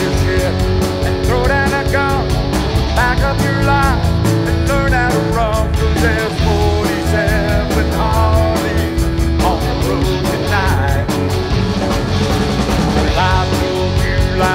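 Rock band playing: a lead line of bending, wavering notes, most likely electric guitar, over steady drums and bass.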